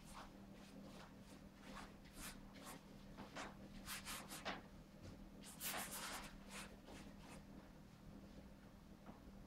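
Paintbrush strokes on a large stretched canvas: a run of short, scratchy swishes, coming thickest around the middle, over a faint steady hum.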